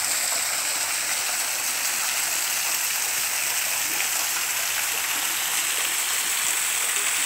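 Small waterfall splashing down the rocks of a grotto into a pool: a steady rush of falling water.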